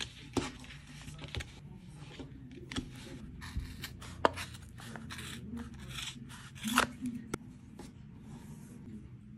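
Scissors snipping through a bundle of cotton thread wound on a cardboard strip, amid light rustling and handling of thread and card. A scatter of short sharp snips and clicks, the loudest about two-thirds of the way in.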